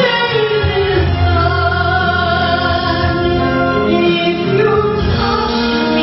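Choir singing a song, with held notes changing every second or so.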